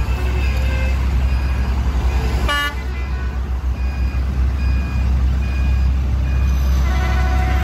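Diesel locomotive engine rumbling loudly as the container freight train passes close by, with a short horn toot about two and a half seconds in. Short electronic beeps from the level-crossing warning signal repeat over the top.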